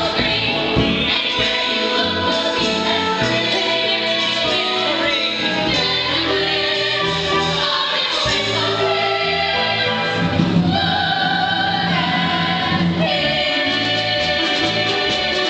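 Musical-theatre cast singing together in chorus over instrumental accompaniment, with sustained held notes.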